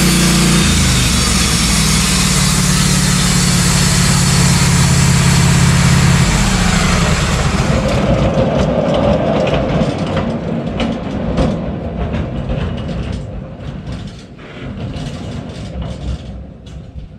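Wood-Mizer LT15 bandsaw mill's engine running at speed. About six seconds in its steady note drops away. The sound then winds down over the following seconds into scattered clicks and knocks.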